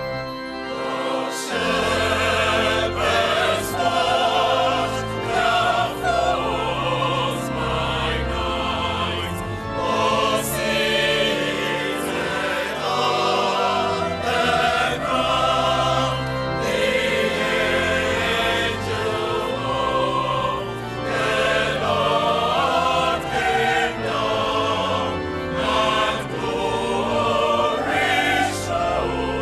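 A choir singing in harmony, with many voices holding and moving through sustained notes over a keyboard accompaniment.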